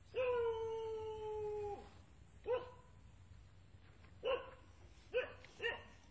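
An animal calling: one long, steady call sinking slightly in pitch, then four short calls spaced out over the next few seconds.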